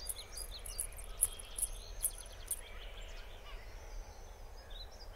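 Outdoor ambience of small birds chirping, a quick run of high chirps in the first half that thins out, over a low steady background.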